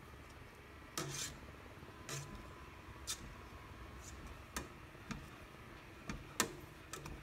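Wooden masher knocking and scraping against the bottom of a stainless steel pot as simmering elderberries are mashed, with irregular knocks about once a second.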